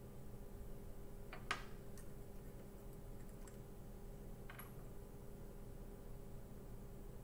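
A few faint clicks and light taps of a small glass dropper bottle being handled and opened, its dropper knocking against the glass, over a steady low hum.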